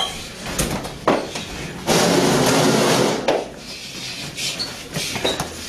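Knocks and bumps from several people scuffling at close quarters, with a loud noisy burst lasting about a second and a half around two seconds in.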